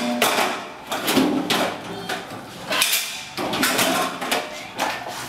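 Metal cooking pots clanking and scraping against each other and a stainless steel sink as they are washed and set down, in a series of irregular knocks.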